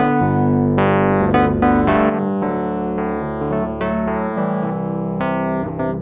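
Background music on keyboards: piano-like notes struck and fading over held low chords.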